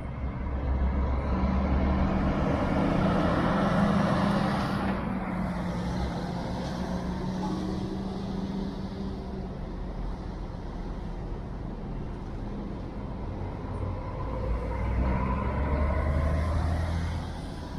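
Diesel engine of a double-decker intercity coach pulling past at low speed, loudest in the first few seconds and then fading away. Near the end a second coach's diesel engine grows louder as it drives close by, over a steady traffic hum.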